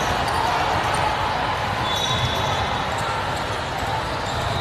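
Basketballs bouncing on a hardwood court in a large, echoing hall, over a steady murmur of crowd voices.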